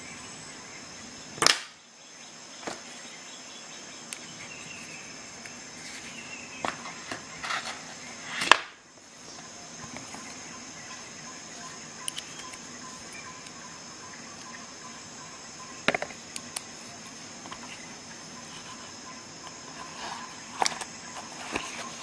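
Small metal tool parts being handled: two sharp clicks about a second and a half and eight and a half seconds in, and scattered lighter ticks and taps, as a hex bit and short extension are fitted into a small Facom ratchet. A steady faint hiss lies under it.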